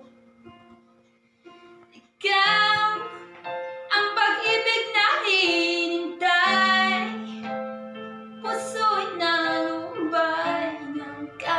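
A young man's solo singing voice over an instrumental accompaniment. The first two seconds hold only the soft accompaniment; then the voice comes in loud with long held notes that slide in pitch.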